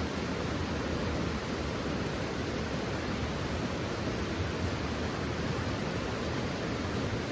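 Steady rushing of river water, an even noise with no separate sounds in it.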